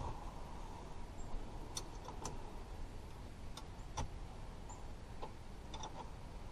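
Scattered, irregular metallic clicks and taps from hand tools working the 14 mm bolts on the rear brake caliper, about eight in all, a few with a short ring.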